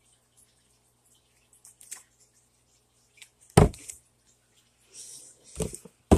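Handling noise right at a phone's microphone as a lemon juice bottle is moved past it: a few sharp knocks and rustles, the loudest about three and a half seconds in and two more near the end.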